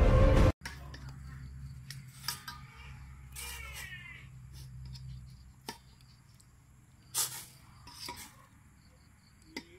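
Music cuts off abruptly half a second in, then metal tongs clink and scrape against a stainless steel bowl of hot water as a water snake is handled in it. There are several sharp clinks, the loudest about seven seconds in, and a short warbling call near four seconds.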